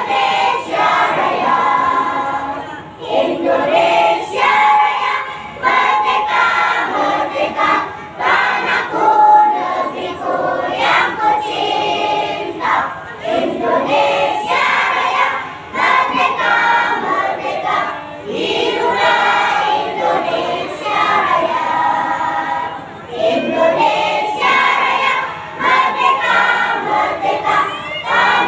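A group of young schoolchildren singing together as a choir, in phrases of a few seconds with short breaths between them.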